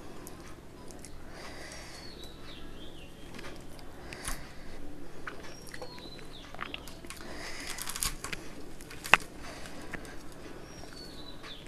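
Close-up eating sounds of someone chewing a mouthful of rice and fish curry: soft repeated chewing and mouth noises with scattered clicks, and one sharp click about nine seconds in.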